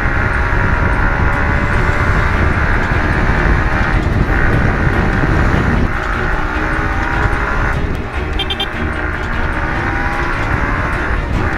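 Yamaha MT15's single-cylinder engine running under way, its revs rising and falling, with wind rushing over the helmet microphone. A brief high beeping sounds about eight seconds in.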